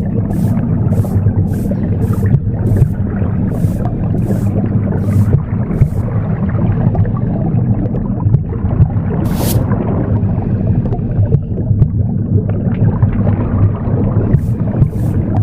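Womb sound: a continuous low, muffled whooshing rumble, mixed with the rhythmic swish of broom strokes. The strokes come about two a second, stop about six seconds in, return once about halfway through, and start again near the end.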